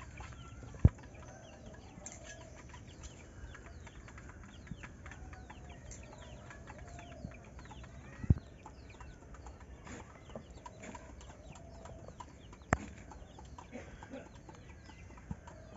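Chickens clucking, with small birds chirping in quick falling notes, while a hand works a thin flour batter in a steel bowl. Three sharp knocks are the loudest sounds: about a second in, at about eight seconds, and near thirteen seconds.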